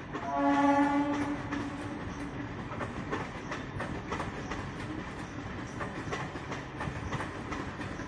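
Indian Railways MEMU electric passenger train sounding its horn in one blast of about a second near the start, its tone fading away over the next second, then wheels clacking in a regular rhythm over the rail joints as the coaches run past.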